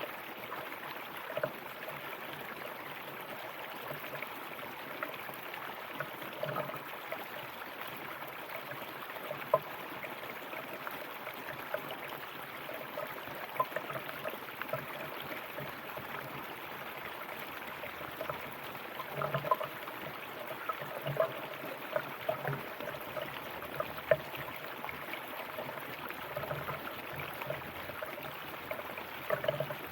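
A river or stream flowing steadily over rocks, with small splashes and gurgles scattered through the rush of water.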